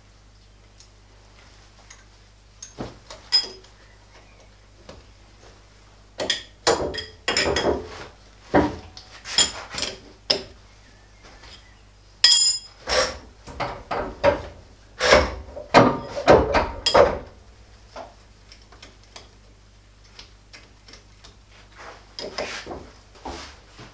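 Metal clinks and clanks of a steel spanner on the nuts as a chuck backing plate is tightened onto a lathe spindle. The knocks come in irregular groups, thickest through the middle stretch and sparse at the start and end.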